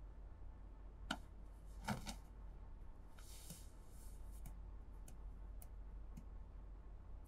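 Quiet room tone with a steady low hum, a few faint scattered clicks, and a soft rustle about three seconds in, as a man gets up out of bed.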